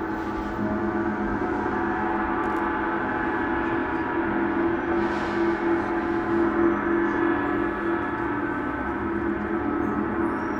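Large gong sounding in a sustained, shimmering wash of many overtones, swelling a little past the middle.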